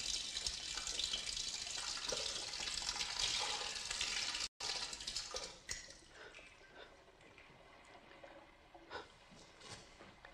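Water running from a tap into a washbasin, an even rush that stops about five and a half seconds in. After that only faint small splashes and rustles are heard.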